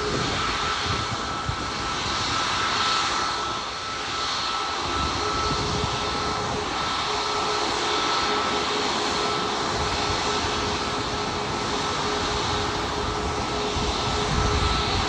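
Jet airliner engines running steadily: a broad rush of noise with a constant high whine, holding at one level without rising or falling.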